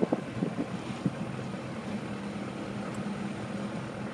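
Car engine and road noise heard from inside the cabin while driving: a steady hum, with a few short knocks in the first second.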